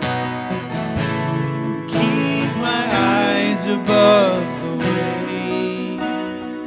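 Two acoustic guitars strumming a worship song, with male vocals singing into microphones and coming in about two seconds in.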